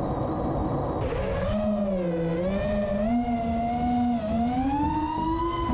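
FPV quadcopter's brushless motors and propellers spinning up for takeoff and flight. A steady hum and hiss gives way, about a second in, to a whine of several tones at once that dips and then climbs in pitch as the throttle rises.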